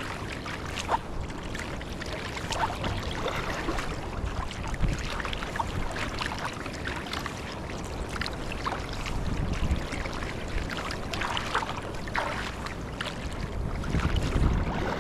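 Water splashing and sloshing around a sea kayak paddled through choppy lake water, with many small splashes and drips from the paddle strokes. A low rumble of wind on the microphone comes and goes, strongest near the end.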